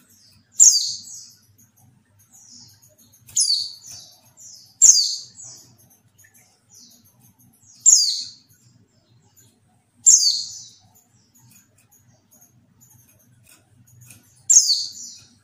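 Female white-eye (pleci) calling: six sharp, high, downward-sweeping calls a few seconds apart, with softer chirps between. These are the female calls used as a lure to get male white-eyes to answer and sing.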